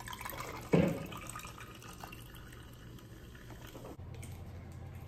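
Schweppes tonic water poured from its bottle into a glass of ice, a steady trickle of liquid that stops about four seconds in. A short knock sounds about a second in, the loudest moment.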